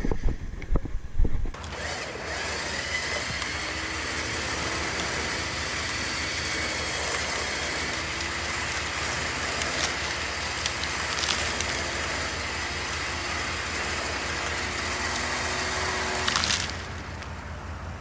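Vevor 13,000 lb electric winch running steadily under load as it pulls a leaning tree over on a rope, a steady motor hum from about two seconds in that drops away near the end. The first second and a half is a few knocks on the camera.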